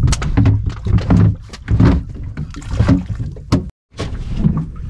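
Repeated knocks and clatter of shell octopus traps being hauled aboard a small boat, over a low rumble. The sound cuts out completely for a moment about three-quarters of the way through.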